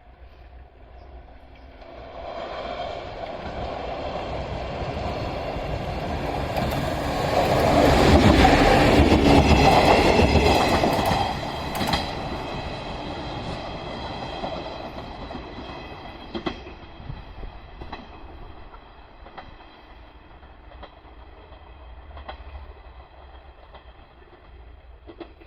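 Train passing close by: its rumble builds over several seconds, is loudest for a few seconds, then fades slowly, with the wheels clicking over rail joints as it goes away.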